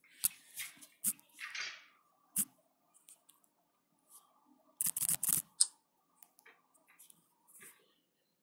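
A shotgun being handled and readied: a series of sharp metallic clicks and clacks, with a quick cluster of clicks about five seconds in.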